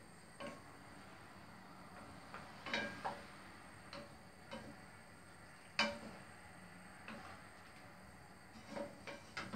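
Wooden spatula knocking and scraping against a frying pan as chicken pieces are stirred, in irregular soft taps, the loudest about six seconds in.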